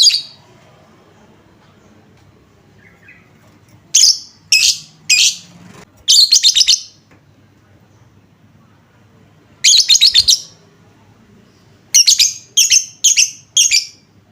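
Lovebird chattering in about ten short, shrill bursts of rapid notes, grouped with pauses between: three in quick succession, then a longer one, one more, and four close together near the end. It is a bait call of the kind played to set other lovebirds singing.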